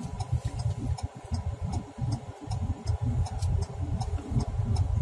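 Car turn-signal indicator ticking steadily, about twice a second, inside the cabin over the low rumble of the car driving slowly.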